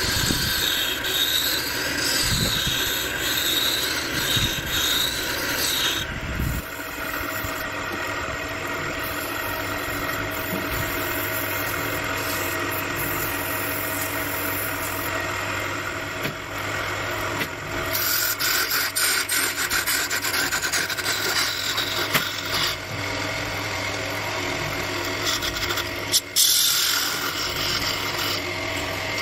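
Wood lathe running with a steady hum while a hand-held turning tool scrapes and cuts a spinning wooden piece, with a wavering whine during the first few seconds. In the middle, sandpaper rubs against the spinning wood; later the tool cuts again with a rougher scraping, and there is one short sharp knock near the end.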